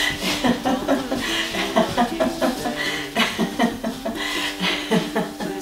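Sustained laughter in quick, short bursts, several per second, the deliberate free laughing of a laughter-yoga exercise. A steady low tone runs underneath.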